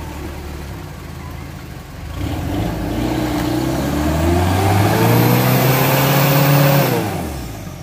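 Diesel engine of a Daihatsu Taft 4x4 idling, then revving up steadily for about five seconds, typical of a vehicle pulling through a difficult off-road stretch, before the revs drop away quickly near the end.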